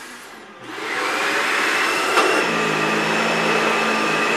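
A Dyson DC65 upright vacuum cleaner switched on: a dying sound with a falling tone fades out, then about half a second in the motor starts up to a steady loud rush of air with a high whine. A click comes about two seconds in, and a lower hum joins after it.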